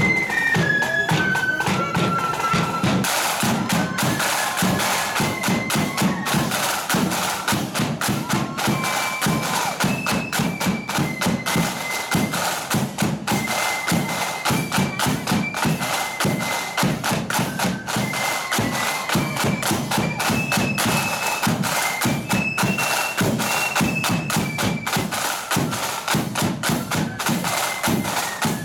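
Marching flute band playing a tune: a high flute melody moving in steps over snare drums and a bass drum keeping a steady marching beat.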